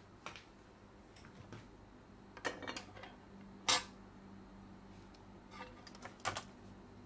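Irregular small clicks and taps of metal tweezers and plastic parts as a PS5 DualSense controller is taken apart, the sharpest click a little past halfway.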